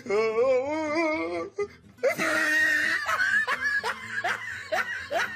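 A person laughing: first a long wavering laugh, then after a short breath a run of short rising bursts about twice a second.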